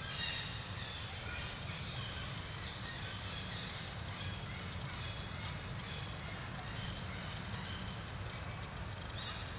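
A short high-pitched animal call that rises and then holds, repeated about once a second, over a steady low background hum.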